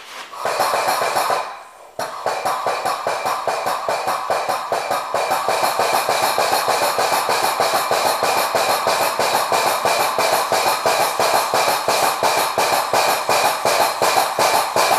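Air-operated President piston paint pump cycling fast and evenly, about five knocking strokes a second, while it primes by drawing paint from a bucket through its suction hose. A short rush of noise comes first, and the pump settles into its rhythm about two seconds in.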